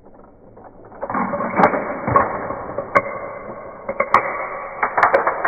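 Plastic toy transforming battle car rolling and rattling across a tile floor, with several sharp plastic clicks and snaps as its spring-loaded parts catch the coins and flip open.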